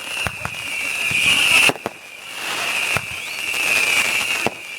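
Fireworks going off: a steady high hiss that builds and cuts off abruptly twice, with scattered sharp pops and crackles.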